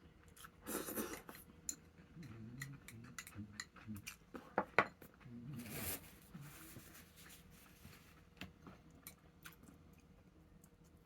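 Kitchen prep handling sounds: scattered light clicks and knocks of utensils and dishes, with two short rustles about a second in and again near the middle.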